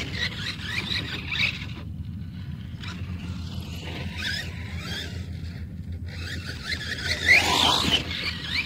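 Brushless electric motor of a DHK Crosse BL radio-controlled monster truck whining in rising and falling bursts of throttle as it climbs a steep dirt pile, with its tyres spinning in loose dirt; the revving is loudest near the end.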